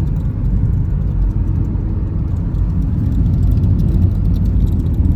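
Inside the cabin of a Mahindra XUV 3XO on the move: a steady low road and engine rumble with a faint, continuous rattle of small ticks from the dashboard. The owner takes the rattle for badly fitted dashboard plastics, like something loose.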